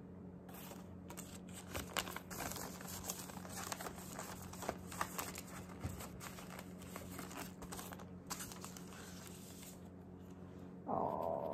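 Paper rustling and crinkling in short, irregular bursts as sheets of card are handled.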